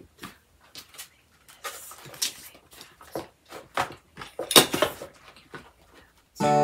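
Paper packets, small sewing notions and fabric being handled and set into a box: scattered rustles and light taps, the loudest a little after four seconds in. Music starts just at the end.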